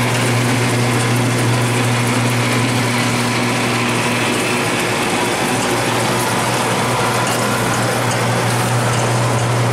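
Steele Hercules automatic thermographer running: a steady machine hum with a rush of air from its blower as the conveyor carries sheets through. One higher tone in the hum drops out about halfway.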